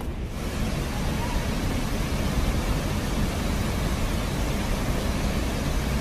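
Athirappilly Falls in heavy flood flow: a loud, steady, even roar of falling water that cuts in abruptly at the very start.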